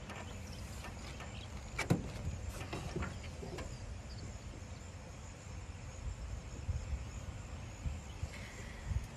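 Quiet outdoor background with a steady low rumble and a few small clicks and knocks; the sharpest click comes about two seconds in.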